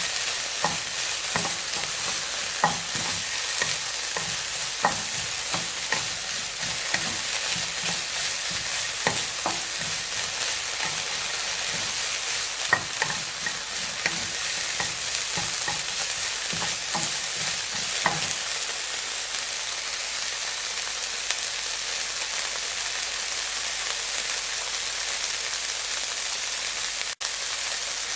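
Meat frying in hot oil: a steady sizzle with frequent sharp pops and crackles for about the first two-thirds, then settling into a smoother, even sizzle.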